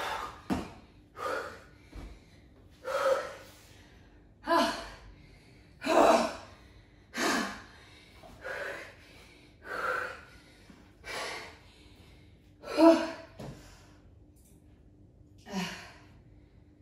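A woman breathing hard and gasping from heavy exertion, out of breath. About a dozen loud breaths come roughly one every second and a half, the loudest about thirteen seconds in.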